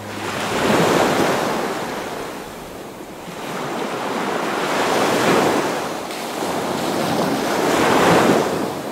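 Small waves washing in shallow water, the rush swelling and fading three times.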